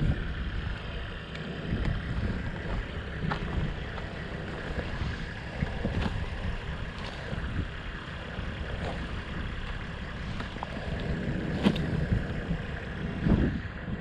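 Road noise from passing motor vehicles, a steady rumble with a few sharp knocks, the loudest near the end.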